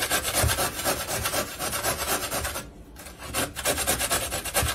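A carrot being grated on a metal box grater standing on a wooden cutting board: quick, repeated rasping strokes, with a short pause a little past halfway.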